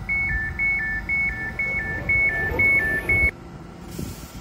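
Elizabeth line Class 345 train's door warning: a loud electronic two-tone beep alternating high and low, about seven pairs at roughly two a second, which cuts off suddenly about three seconds in, over the low hum of the standing train. It signals that the doors are closing before departure.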